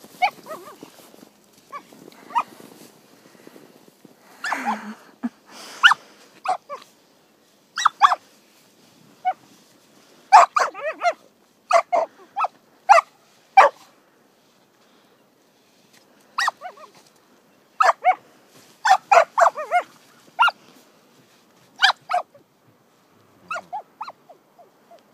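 Australian shepherd puppy barking in short, sharp, high yaps that come in quick clusters with pauses between, as she plays at a hand in the snow.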